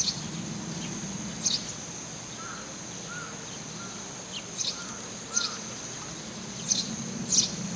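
Eurasian tree sparrow chirping: about six short, sharp single chirps at irregular intervals, with fainter, lower calls from another bird in between.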